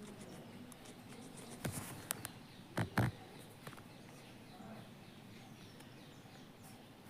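Guinea pig chewing a carrot: quick, faint crunching clicks, with a few louder crunches a couple of seconds in.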